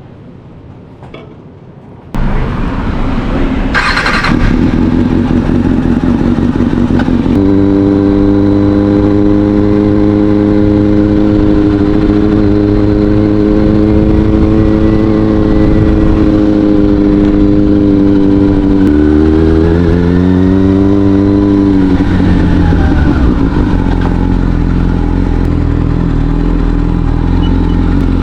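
Kawasaki Ninja ZX-6R inline-four with an Akrapovic exhaust: the engine sound comes in suddenly about two seconds in and holds at a steady pitch. Around two-thirds of the way through, the pitch climbs as the bike pulls harder, then settles again.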